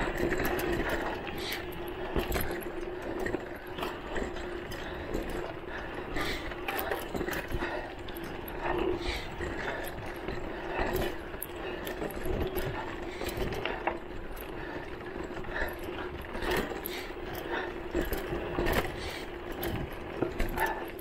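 Voltbike Enduro electric mountain bike's motor whining at a steady pitch while ridden over a bumpy dirt trail, with frequent rattles and clicks from the bike jolting over the bumps.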